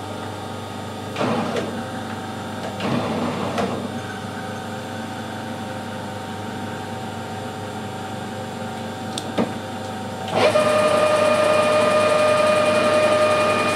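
Metal lathe turning slowly while a parting tool cuts into a knurled workpiece, with a few knocks in the first few seconds. About ten seconds in the lathe steps up to a higher spindle speed and runs louder with a steady whine.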